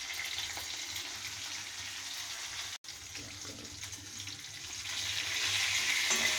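Dried red chillies, cumin and panch phutana sizzling in hot sunflower oil in a kadai: a steady hiss that grows louder about five seconds in, with a brief dropout about three seconds in.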